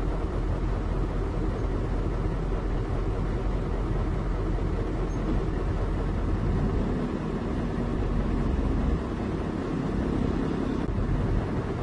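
Heavy diesel engine running steadily with a low rumble.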